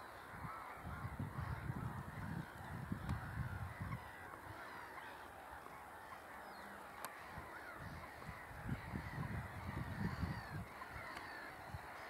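A distant flock of geese calling, a continuous chatter of overlapping honks, with gusts of wind rumbling on the microphone at times.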